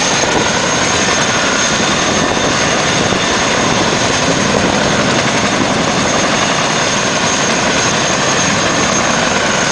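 Military helicopter running nearby: steady loud rotor and turbine noise with a thin, constant high whine over it.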